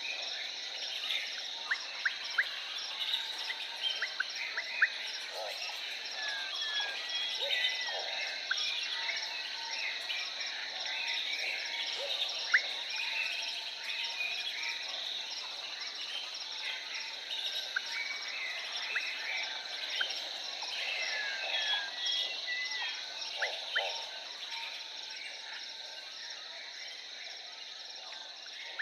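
Jungle ambience: a steady high-pitched insect drone with a fast, even pulsing chirr, over which birds give many short chirps and gliding whistles, with a few sharper, louder calls.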